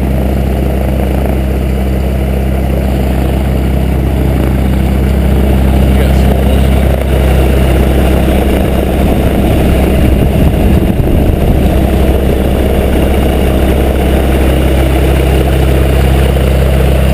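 Rotax engine of a small light aircraft running on the ground with its propeller turning, in an engine run-up. It runs steadily and gets somewhat louder a few seconds in as it is opened up, then holds there.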